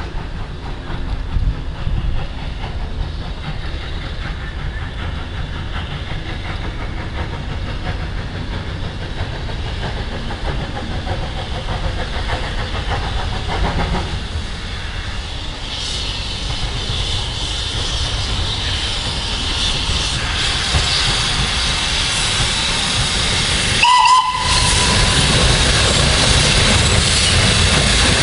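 Steam locomotive running with a steady rumble, the hiss of steam growing louder over the second half. A short whistle toot sounds near the end, after which the train noise is louder.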